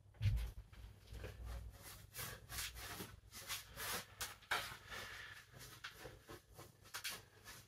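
Paintbrush scrubbing oil paint onto the painting in short rubbing strokes, about two a second, with a dull low knock just after the start.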